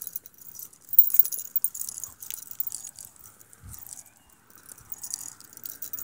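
Several metal chain necklaces and medallion pendants jingling and clinking against each other as the wearer moves, irregular and loudest about a second in.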